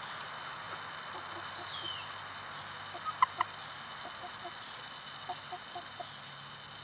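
Chickens clucking softly while dust bathing: a few short, sharp clucks about halfway through, then a run of low, soft clucks over a steady background hiss.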